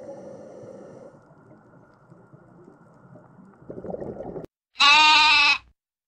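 A lamb bleats once near the end, a loud call of under a second. Before it comes a faint, muffled low rush of underwater ambience.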